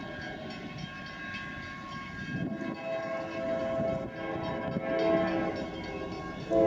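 Diesel freight locomotive's air horn sounding its chord in several blasts as the train approaches a grade crossing, with a louder blast starting near the end. The train's low rumble runs underneath.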